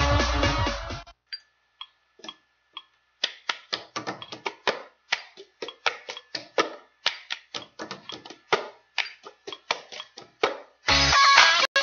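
Music stops about a second in. After a short pause comes a long run of quick, irregular clicks and taps, several a second, with a faint steady tone under them. Music starts again near the end.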